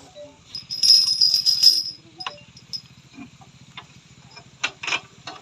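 Metal towing gear rattling and jingling loudly about a second in, then a few separate clanks and clinks, over an engine idling with a steady low pulse.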